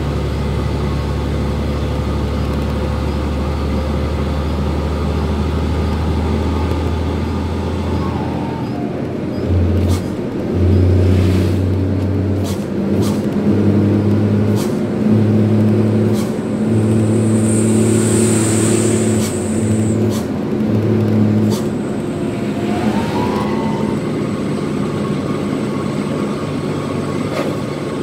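Twin-turbo diesel truck engine running under way, heard from inside the cab. Its steady low note breaks into uneven on-off pulses through the middle, with a short hiss about two-thirds through.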